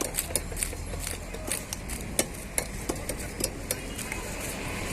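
Knife cutting a large bhetki (barramundi) fish: irregular sharp clicks and knocks, several a second, over a steady low background hum.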